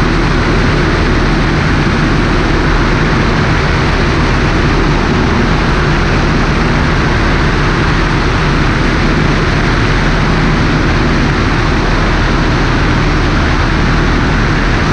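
A Cessna 150's Continental O-200 four-cylinder engine and propeller running steadily in flight, mixed with loud rushing airflow over a wing-mounted camera's microphone.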